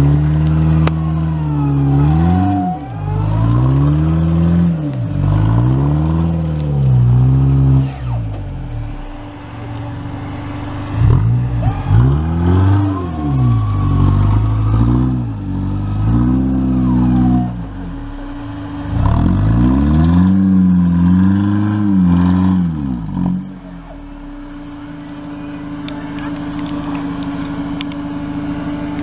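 Off-road 4x4's engine revving up and down over and over, about one surge every second or two, as the vehicle is driven hard over rough terrain. Near the end the engine settles to a steadier, quieter drone.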